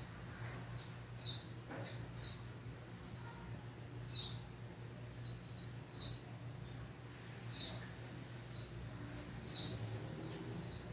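A small bird chirping, a rapid irregular series of short high chirps, over a steady low hum.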